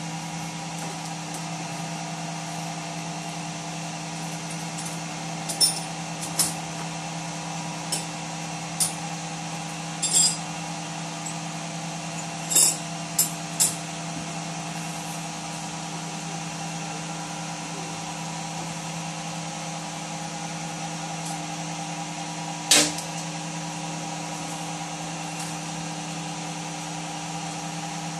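Soap plodder running steadily, its electric motor driving the screw that pushes soap chips through a perforated plate to knead them into an even paste: a continuous machine hum with a low tone. Sharp clicks come several times in the first half, and one louder click about 23 seconds in.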